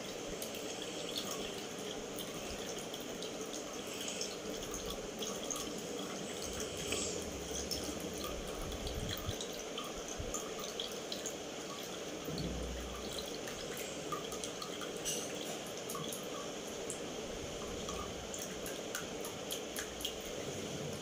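A steel ladle scraping and pressing thick wood apple pulp through a plastic tea strainer, with small clicks of metal on the strainer and juice dripping into a glass, over steady background noise.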